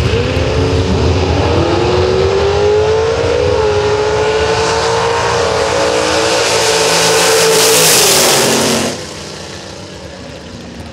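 Two gasser drag cars launching side by side and accelerating hard down the drag strip, their engines at full throttle with the pitch climbing. About nine seconds in the sound falls away sharply to a much fainter engine note.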